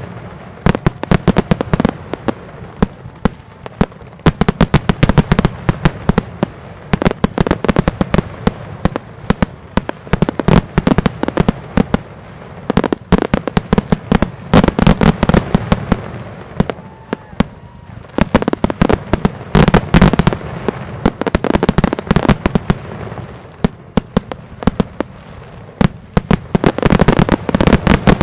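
Fireworks display: continuous rapid crackling and popping from bursting shells. The bursts gather into dense, louder clusters every few seconds, with low booms under them.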